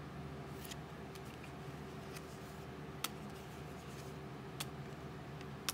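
Pokémon trading cards being handled: four short, soft ticks spread through a few seconds, over a steady low hum.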